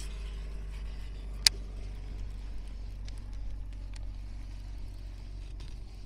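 Steady low hum, with one sharp click about a second and a half in and a few fainter ticks after it.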